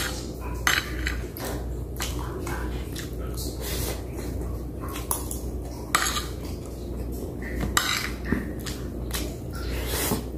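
Metal spoon and fork clinking and scraping against plates during eating, in sharp, irregular clinks about once a second, over a low steady hum.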